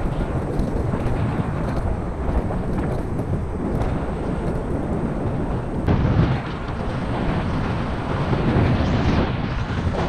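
Wind rushing and buffeting over the camera microphone while riding a Xiaomi Mijia Pro electric scooter, a steady, rumbling noise. The sound changes abruptly about six seconds in.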